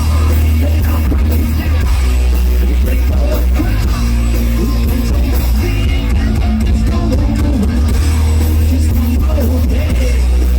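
Live rock band playing loudly, with heavy bass, drums and distorted guitar.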